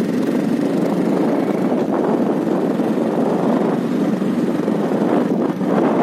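Steady running noise of a moving road vehicle, with wind buffeting the microphone.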